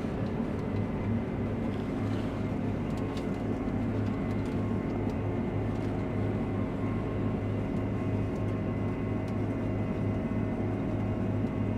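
Case IH combine running steadily while harvesting wheat: an even engine and machinery drone made of several steady tones, with no change in speed.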